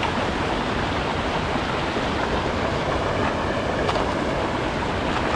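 Fast-flowing rocky mountain stream rushing over stones: a loud, steady, even rush of water.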